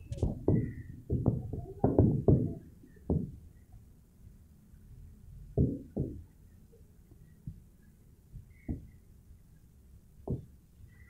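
Irregular dull thumps and knocks: a quick cluster in the first three seconds, then a few scattered single knocks.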